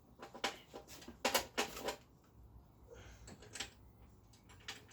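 Irregular sharp clicks and light knocks, the loudest quick run of them about a second in, from small metal parts and hand tools being handled while a grab handle is fitted to a motorcycle.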